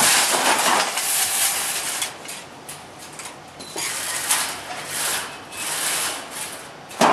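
Steel wire mesh scraping and rustling on a crimped-wire mesh weaving machine as it is worked, in uneven hissy swells, loudest near the start and fading back in short surges toward the end.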